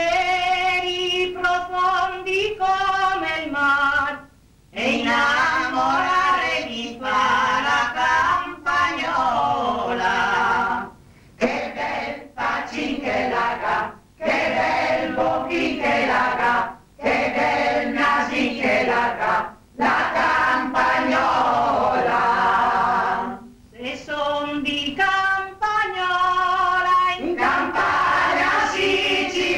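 A group of men and women singing a folk song together, in long phrases broken by short pauses for breath.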